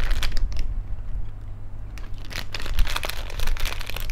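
A foil snack pouch crinkling in the hands, with irregular crackles that grow denser about halfway through as the packet is torn open at one corner.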